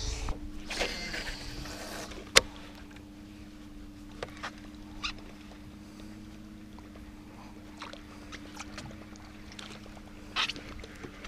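Minn Kota 37-pound-thrust electric trolling motor running steadily, a low two-tone hum pushing the canoe along. A few brief clicks and knocks sound over it, the sharpest about two seconds in.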